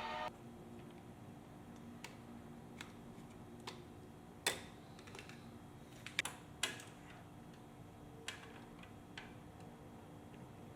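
Background music cuts off just after the start. Then come scattered light clicks and taps, about ten of them, irregularly spaced, over a faint steady hum.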